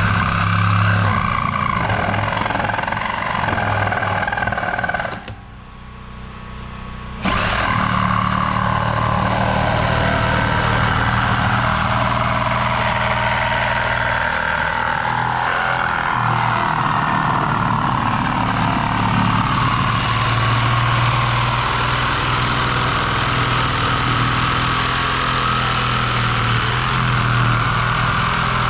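Reciprocating saw cutting through the steel top of a buried heating-oil tank, a loud, steady grinding rasp. It stops briefly about five seconds in, then cuts again with its pitch slowly dropping and wavering as the blade works through the metal.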